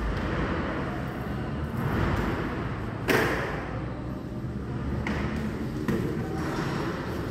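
Steady background rumble and hiss, with one sharp thump about three seconds in and two lighter knocks later on.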